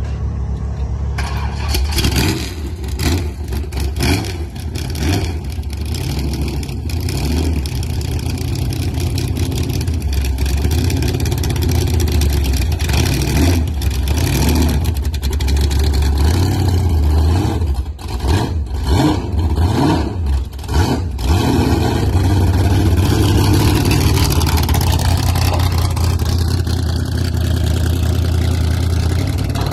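Loud car engine running and being revved unevenly, with many short sharp cracks through the first two-thirds, then settling into a steady run near the end.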